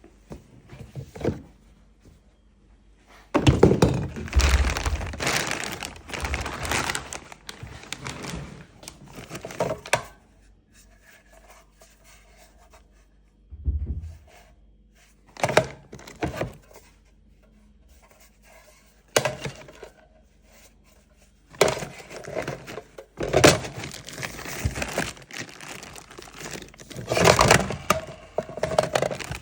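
Clunks and clatter from a Bren light machine gun being handled, coming in several bouts of dense knocks with quiet gaps between.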